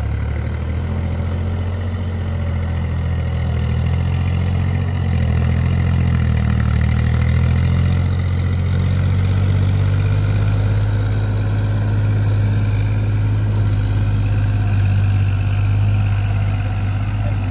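Powertrac Euro 50 tractor's diesel engine running steadily under load while its wheels churn through deep paddy-field mud, getting a little louder about five seconds in.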